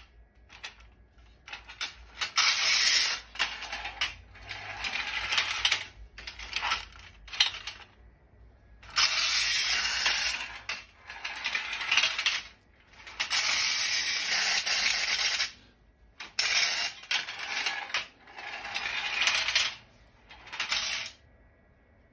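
Clockwork motor of a Soviet wind-up tin toy car whirring and rattling as it runs along its plastic overpass track, in repeated bursts of one to two seconds with short pauses, stopping about a second before the end.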